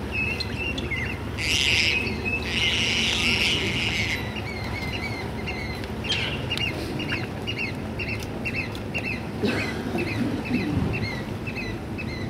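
Birds calling: a long run of short, high chirps repeated about twice a second, with two harsher, noisier calls in the first few seconds, over a steady low rumble.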